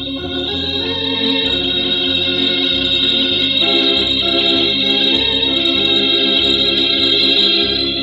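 Organ music: sustained chords held over a low bass line that steps to a new note about every half second to a second, with the chord changing about three and a half seconds in.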